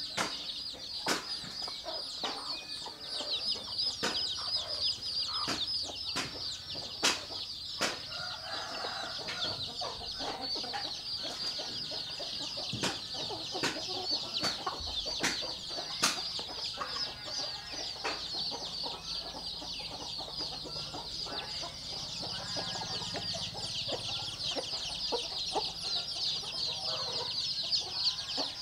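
Many chicks peeping at once in high, rapid cheeps, with hens clucking lower now and then. Scattered sharp clicks come from beaks pecking the feed in the trough.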